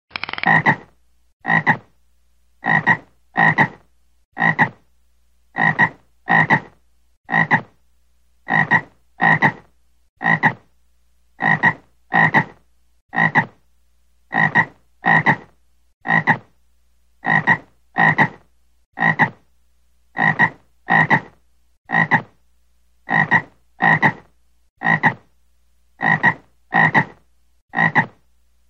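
Frog croaking: a long, steady series of short croaks, often in quick pairs, about one to two a second.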